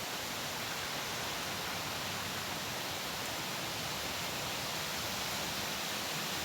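Wind blowing together with trickling water, a steady even rushing hiss with no distinct events standing out.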